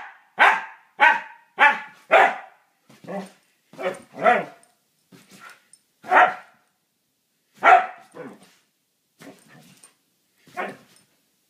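Siberian husky barking in short bursts: five quick barks in the first two seconds or so, then about ten more spaced further apart.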